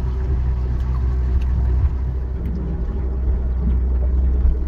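Shanty boat's motor running steadily underway, a low even hum.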